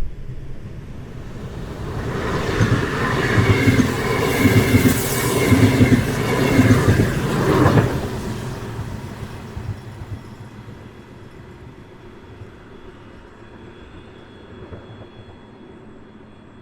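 An ES2G Lastochka electric multiple unit passes close by. Its wheels clatter rhythmically over the rail joints, loudest from about two to eight seconds in, then the sound fades as the train moves away. A faint, thin high tone lingers near the end.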